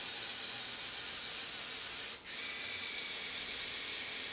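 LEGO Technic 8043 excavator's Power Functions electric motor and gearing whirring steadily as it drives the second boom section. It stops for a moment about halfway, then runs on a little louder.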